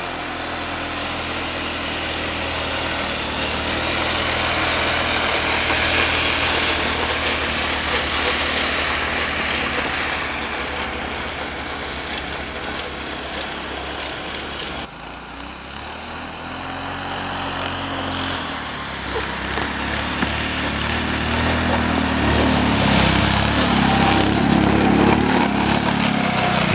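Snowmobile engines running and revving, among them the small 200cc engine of a mini snowmobile, the pitch rising and falling as the sleds move. The sound drops suddenly about halfway through, then builds again to its loudest near the end.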